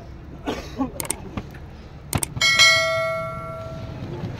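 Subscribe-button sound effect: a few mouse clicks, then a notification bell dings once and rings out over about a second and a half.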